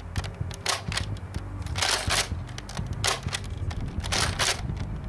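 Nerf Vortex Praxis pump-action disc blaster being pumped and fired over and over: four plastic rasping clacks about a second apart, with a low wind rumble on the microphone.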